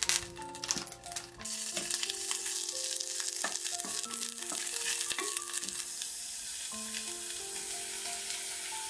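Minced garlic frying in melted butter in a small enamel pot while it is stirred with a spoon. A few knocks come in the first second and a half, then a steady sizzle, with background music of held notes.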